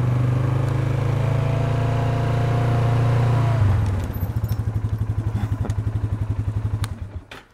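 ATV engine running at raised revs, settling about three and a half seconds in to an evenly pulsing idle, then cut off near the end.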